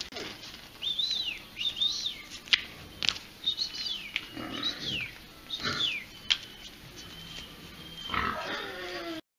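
A series of short, high animal calls, each rising and falling in pitch, with a lower falling call near the end.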